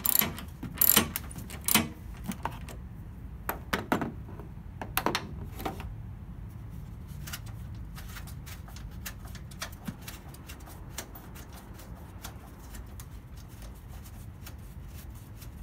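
A socket ratchet clicking in short strokes as it loosens a bolt, about one stroke a second for the first six seconds, then fainter scattered small clicks, all over a low steady hum.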